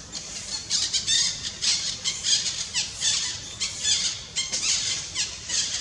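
A rapid series of shrill, high-pitched squawking animal calls, several a second, some with short falling notes.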